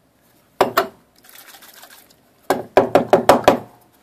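Brass alcohol-stove burner, filled with methyl hydrate and lidded, shaken hard in a leak test: one sharp knock, then a quick run of about seven knocks as the metal burner strikes the wooden table, with the fuel sloshing inside.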